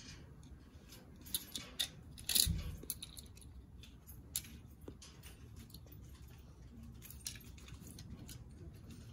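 Toy cars clicking and clacking as a toddler handles them and sets them down: a few sharp clicks, with a louder clatter about two and a half seconds in.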